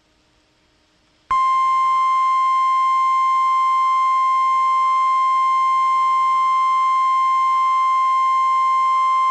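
Emergency Alert System single-tone attention signal, the 1050 Hz warning alarm tone used for National Weather Service warnings, sounding for a severe thunderstorm warning. It comes in suddenly about a second in after near silence and holds one loud, unchanging high tone.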